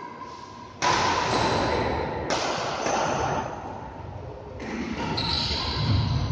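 Badminton rally: rackets striking the shuttlecock in several sharp hits, with players' footwork on the wooden court between them.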